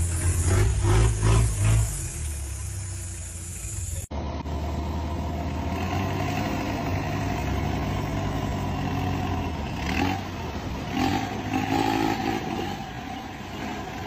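Off-road 4x4 engines running and revving under load as the vehicles are pulled through deep mud on a tow strap. The engine surges several times in the first two seconds. After an abrupt cut about four seconds in, a steadier engine drone follows.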